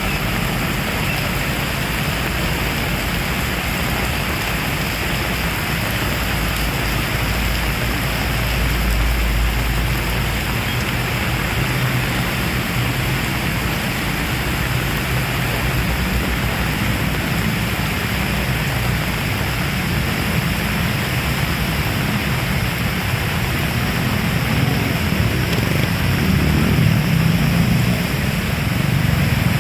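Heavy rain falling steadily, a dense even hiss. A low rumble swells briefly about a third of the way in and builds again near the end.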